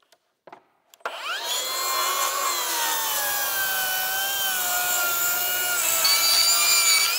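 Milwaukee M18 Fuel cordless track saw spinning up about a second in and cutting along a wooden board for about six seconds, pushed fairly hard, its motor whine sagging slightly in pitch under load before cutting off at the end.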